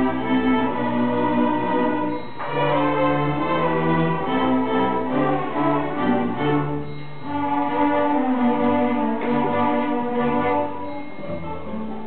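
A youth string orchestra of violins and cellos playing a lively piece, with short breaks in the sound about two and seven seconds in.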